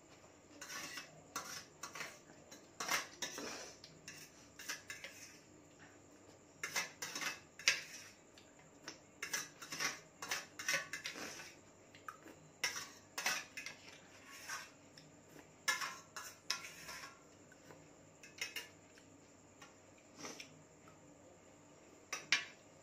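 A metal fork clinking and scraping against a stainless steel plate while eating, in irregular clusters of sharp clicks and short scrapes with quieter gaps between.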